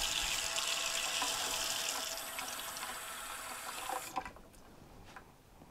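Kitchen tap running hot water into a measuring cup, a steady rush for about four seconds that cuts off when the tap is shut.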